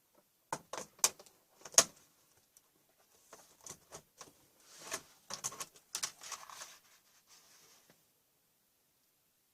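Sharp plastic clicks and scraping from hands working on a Dell Vostro 2025 laptop during disassembly: four sharp clicks in the first two seconds, the last one loudest, then a run of clicks and rubbing from about three to eight seconds in.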